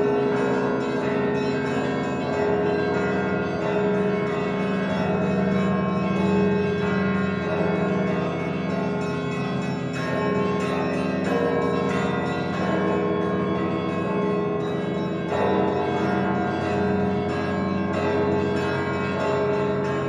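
Church bells ringing in a continuous Easter peal. Many bells sound together, their tones overlapping and ringing on, with a steady rhythmic pulse of strikes.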